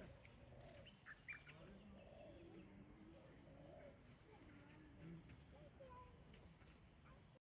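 Faint garden ambience: insects trilling steadily with a fast pulse, with scattered short bird chirps and a few soft, wavering low calls.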